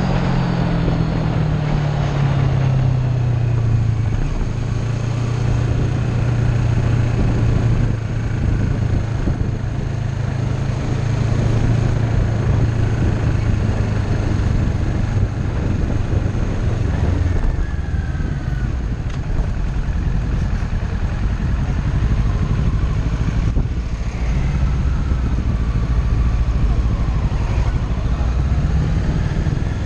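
Kawasaki Ninja 650 parallel-twin engine running while riding, heard onboard. Its note drops over the first few seconds, then holds fairly steady.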